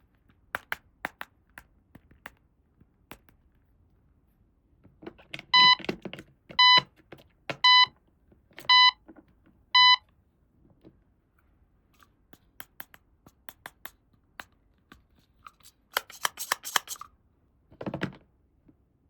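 Electronic beeper of a toy doctor playset sounding five short beeps, about one a second, among small clicks and taps of plastic toy pieces being handled, with a dull thump near the end.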